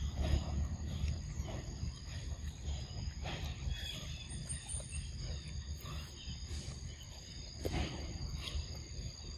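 A macaque eating a ripe mango close by: wet bites and smacks every second or two, over a steady high trill of insects.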